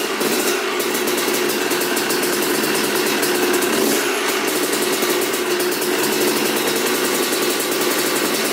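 Freshly rebuilt Yamaha YZ250's two-stroke single-cylinder engine running steadily at idle.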